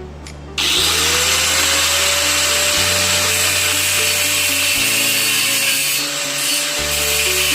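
Grinder cutting steel pipe: it starts with a rising whine about half a second in, then runs steadily with a loud, hissing grind. Background music with a steady bass line plays underneath.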